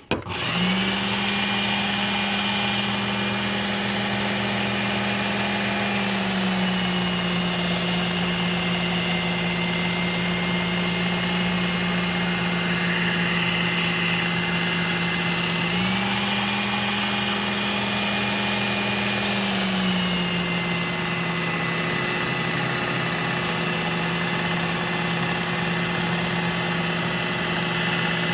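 Work Sharp Ken Onion Edition belt sharpener switched on and running steadily with a Trizact A30 belt for edge refinement. Its motor hum steps down in pitch about six seconds in, rises again around sixteen seconds, and drops again around twenty seconds.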